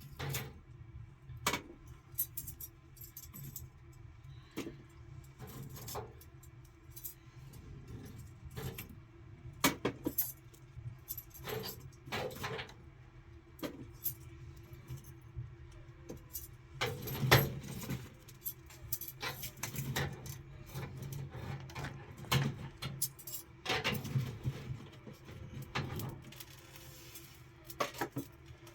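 Irregular clinks and knocks of small hard objects being handled, the loudest a little past halfway, over a faint steady low hum.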